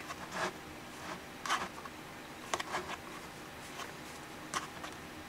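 Yarn and fingers rubbing against the pegs of a knitting loom as the yarn is wrapped for a chain cast on: about four short, faint scrapes, roughly a second apart.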